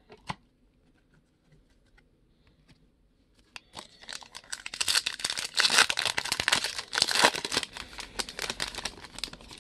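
Foil trading-card pack wrapper torn open and crinkled in the hands, a dense crackling that starts about three and a half seconds in and tails off near the end. A single light click comes just after the start.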